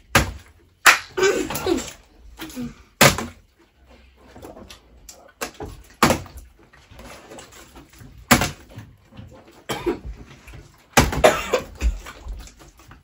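Bottles being flipped and landing on a hard surface: a series of sharp knocks at irregular intervals of about one to two seconds.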